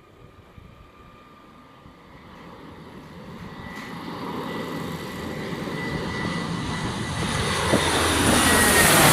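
Lockheed C-130H Hercules's four turboprop engines growing steadily louder as the aircraft approaches, with a steady high whine that drops slightly in pitch near the end as it passes close by.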